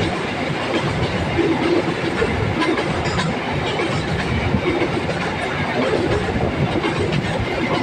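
Train running along the track, a steady rumble with the wheels clattering over the rails.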